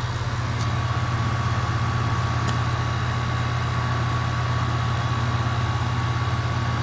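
Goodman 1.5-ton heat pump outdoor unit running in cooling mode, a steady low hum from the compressor and condenser fan.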